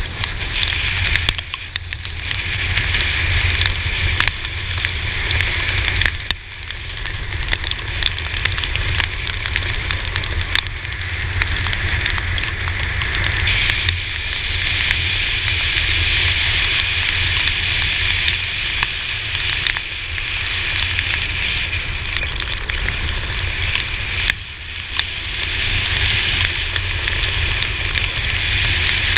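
Raindrops crackling and ticking against the action camera's housing, over steady wind rumble and the hiss of tyres on a wet road while riding a Yamaha T-Max 530 maxi-scooter in heavy rain. The noise dips briefly twice.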